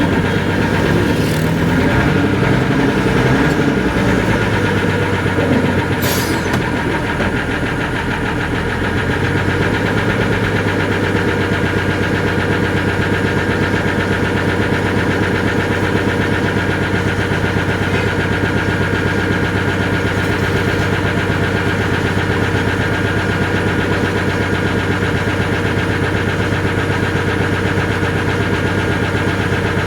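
An engine running steadily at an even speed. Faint voices are heard in the first few seconds, and there is a sharp click about six seconds in.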